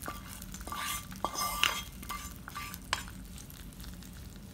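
Hot ghee tadka sizzling as it is poured from the pan onto the dal, with a wooden spatula scraping the pan and knocking against it several times in the first three seconds.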